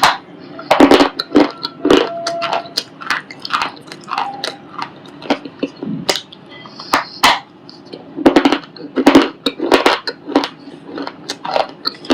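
White ball of shale stone being crunched close up: a loud, irregular run of sharp, gritty cracks and crunches as the brittle stone breaks apart.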